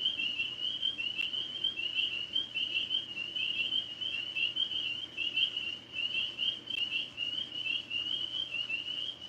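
Tree frogs calling in a dense chorus: a steady, overlapping mass of short, high-pitched calls with no pause.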